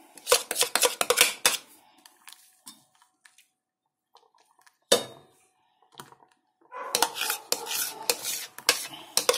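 Metal spoon stirring in a stainless steel saucepan of pastry cream, clinking and scraping against the pot in quick runs. The stirring keeps the thickening cream from sticking and going lumpy. A quick run of clinks comes at the start, then a lull with one sharp clink about five seconds in, then steady stirring again from about seven seconds.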